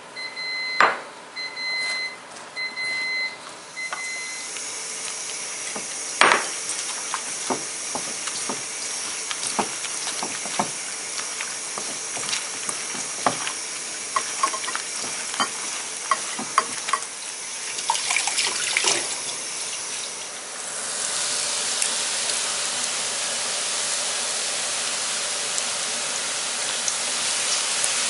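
A repeated electronic beep for the first few seconds. Then scattered clicks and taps as hands mix sliced onion, dried sakura shrimp and flour in a stainless steel bowl. About three-quarters of the way through comes the steady sizzle of kakiage fritters deep-frying in hot oil.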